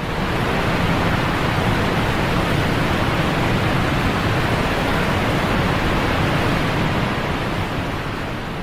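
Steady, even rushing of water, fading a little near the end.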